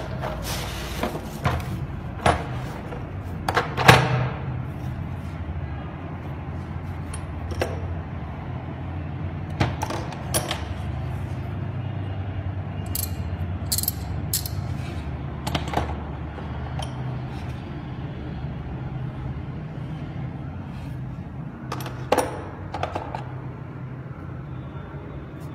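Sockets and a ratchet handle from a stainless-steel socket set clinking and clicking as they are handled in their plastic case: scattered sharp metal clicks, with a steady low hum underneath.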